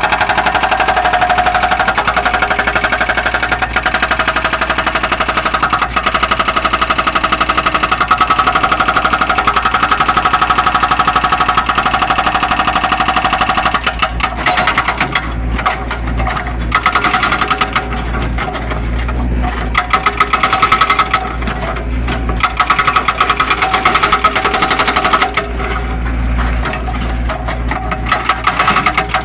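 Zoomlion excavator's diesel engine running hard with a fast clatter and a steady hydraulic whine as it digs. About halfway through, the sound turns uneven, easing off and surging again several times as the work cycles.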